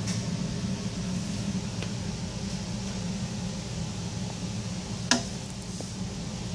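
Steady low machine hum with one sharp click about five seconds in.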